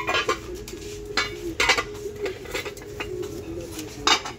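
Serving dishes and their lids clinking and knocking together as they are handled, a string of sharp ringing clinks. The pieces belong to a set of nut dishes.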